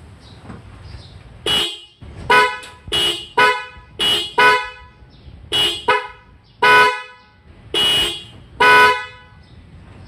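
Mitsuba snail-type car horns (the high and low pair from a Honda CR-V Turbo) sounding in about a dozen short honks, each under half a second, at uneven intervals.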